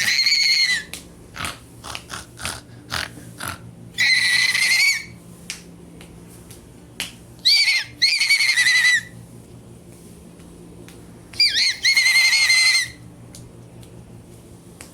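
Shrill, whistle-like squealing with a wavering pitch, in about five bursts of roughly a second each with short clicks between.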